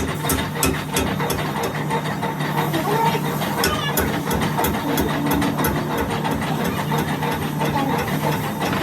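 A machine running steadily, a low hum with repeated clicking over it, while people talk.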